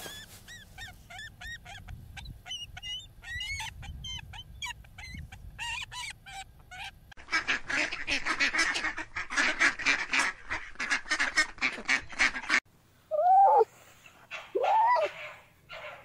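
A bald eagle's high, piping chirps come in quick series. Then geese honk densely for about five seconds, stopping abruptly. After that a red fox gives two short whining calls that rise and fall.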